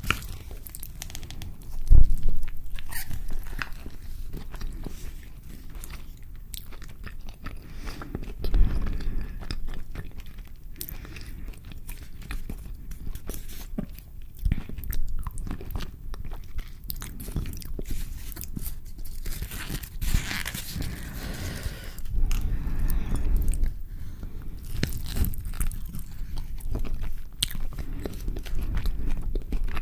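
Close-miked biting and chewing of a carne asada burrito in a flour tortilla, with short sharp bites and mouth sounds throughout and louder bites about two and nine seconds in.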